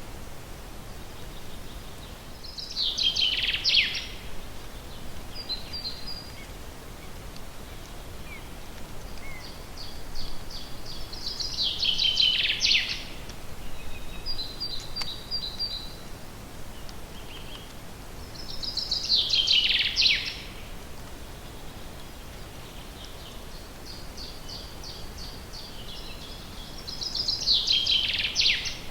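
Songbirds singing: one bird repeats a loud, rapid trill that falls in pitch, about a second and a half long, four times roughly eight seconds apart. Between these phrases, quieter short runs of high repeated notes come from another bird, over a steady faint background hiss.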